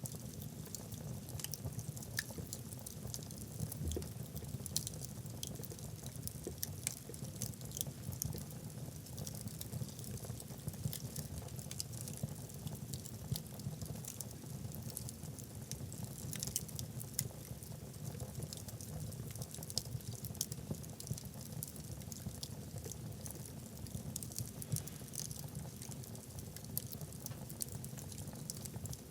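Wood logs burning in a fireplace: a low, steady rumble of flame under frequent small, sharp crackles.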